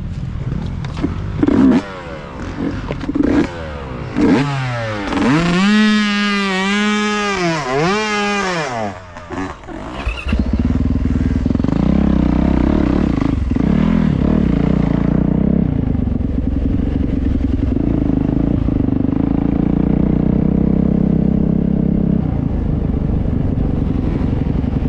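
Off-road dirt bike engines on a rough wooded trail: a few knocks early on, then the engine revving up and down for several seconds, and from about ten seconds in a steady drone as the bike runs at an even speed.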